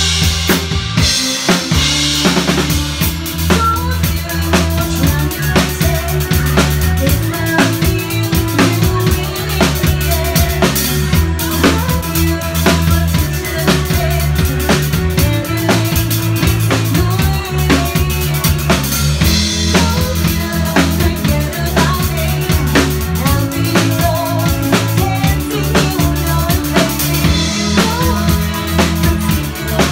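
Live rock band playing, the drum kit loud and driving with kick, snare and cymbal hits on a steady beat over bass and electric guitar.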